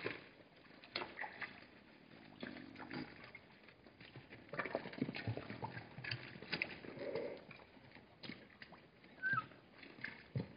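Hartmann's mountain zebras at a waterhole: scattered hoof steps and knocks on hard gravel with sloshing and slurping of water as several drink, in uneven, irregular spells.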